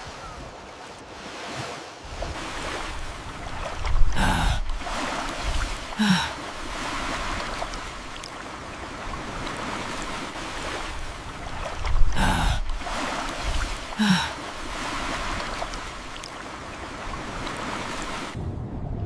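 Steady rushing of water and waves. Two louder surges about two seconds apart stand out, and the same pair comes again about eight seconds later.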